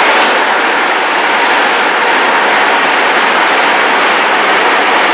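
IFA W50L truck running, a loud steady roar that holds level without change.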